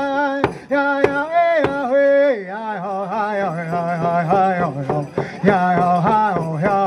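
Native American chant sung over a steady hand-drum beat, the drum struck with a beater. A little over two seconds in, the melody steps down to a lower pitch and carries on there.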